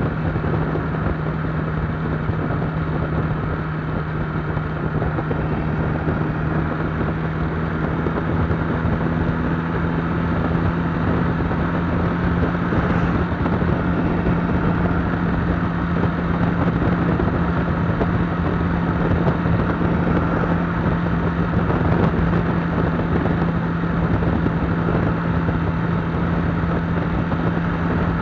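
IZh Jupiter 5 motorcycle's two-stroke twin-cylinder engine running steadily at cruising speed under way, with a constant engine hum over road and wind noise; it gets slightly louder about ten seconds in.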